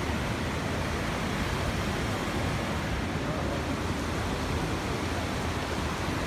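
Steady rushing of a fast mountain river over rocks.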